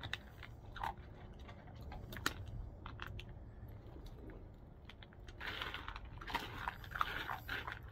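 Puppy crunching dry kibble from a plate, a run of irregular crisp clicks and crunches that gets busier about five and a half seconds in.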